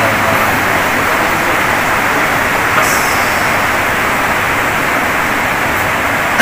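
A steady, loud hiss of noise with no speech, even throughout, with a short click about three seconds in.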